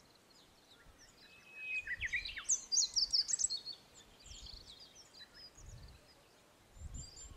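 Small birds singing, with quick high chirps and a busy run of notes from about two to three and a half seconds in. Soft low gusts of wind rumble on the microphone now and then.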